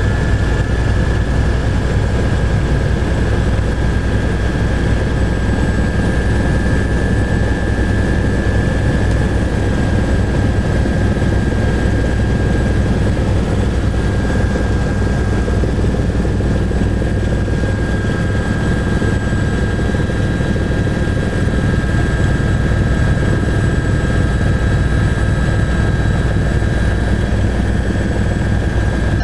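Steady, loud drone of a running vehicle engine with fast low pulsing and a constant high whine, unchanging throughout.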